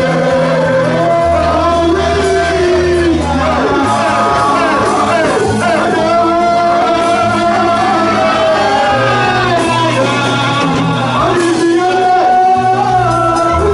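Live worship music: a man singing lead into a handheld microphone, backed by a live band with keyboard, over held bass notes that change every second or two.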